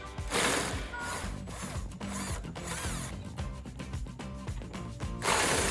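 Power impact wrench spinning a socket on a long extension in two short bursts, about half a second in and again near the end, to break loose and back out 15 mm bumper bracket bolts. Fainter short bursts come between them, over background music.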